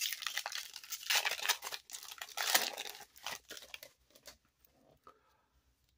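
Foil wrapper of a Panini Donruss football card pack crinkling as it is torn and peeled open by hand, a dense crackle that thins out over the second half to a few faint rustles.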